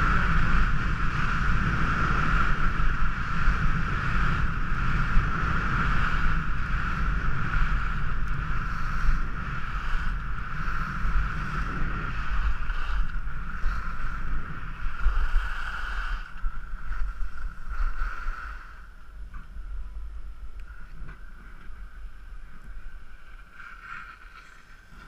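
Wind rushing over the camera microphone and skis running over packed snow during a downhill run, dropping sharply to a quieter hiss after about three quarters of the way through as the skier slows near the bottom.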